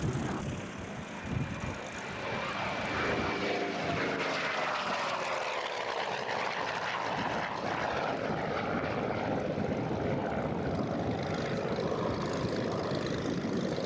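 Propeller airplane flying past, its engine pitch sliding down as it goes by, then a steady engine drone.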